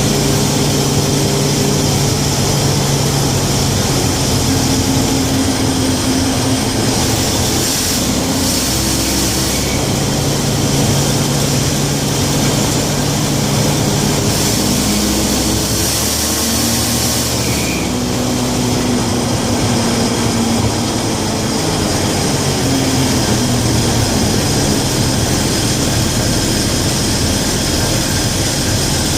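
1967 Chevy G10 van's engine running as the van is driven, under a steady noise of the drive. The engine's pitch shifts up and down several times as the speed changes.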